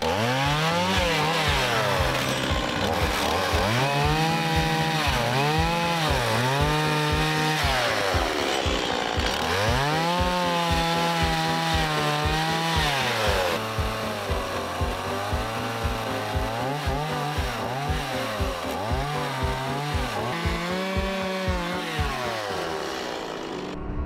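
Stihl chainsaw cutting through the tops of square timber posts. The engine revs up and drops back again and again as it bites into the wood and eases off between cuts.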